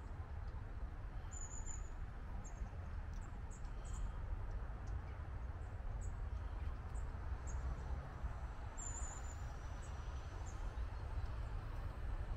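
Steady low outdoor rumble with small birds calling: short, high chirps every second or so, a few of them gliding down.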